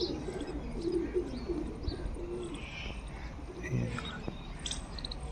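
Domestic pigeons cooing, a repeated low warbling that thins out after about two seconds and returns briefly near the end, with a few high chirps from other birds.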